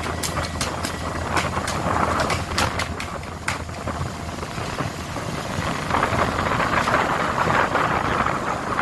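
A fishing boat's engine running steadily, with wind and sea noise over it. A quick run of sharp clicks or knocks comes in the first three and a half seconds.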